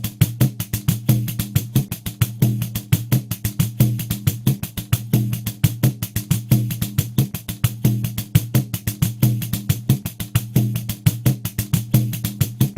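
Pandeiro playing a steady groove at 90 BPM: quick even strokes, about six a second, with the jingles ringing on every stroke over low, booming tones from the drumhead.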